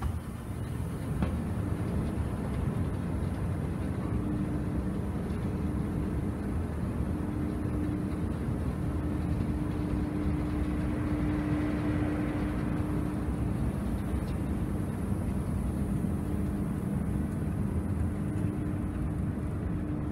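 A running escalator, heard while riding it up: a steady low rumble with a steady hum that grows strongest about halfway up.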